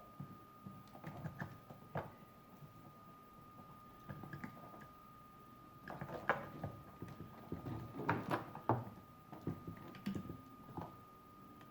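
Plastic toy pieces being handled and fitted together: irregular light clicks, taps and rattles, a few louder ones in the middle, over a faint steady high whine.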